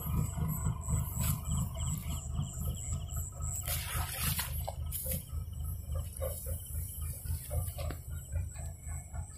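Kubota rice combine harvester running with a low, rough rumble, a thin high whine over it in the first few seconds and a short hiss about four seconds in.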